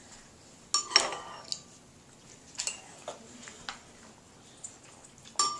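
Spoon clinking and knocking against a soup bowl, a scatter of separate light knocks, the loudest about a second in and another near the end, each with a brief ring.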